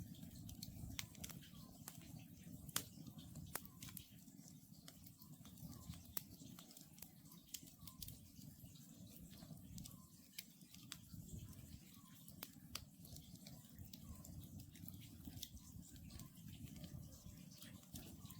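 Wood campfire burning, crackling with frequent sharp snaps and pops over a low steady rush. An oriental scops owl calls faintly in the distance, about once a second.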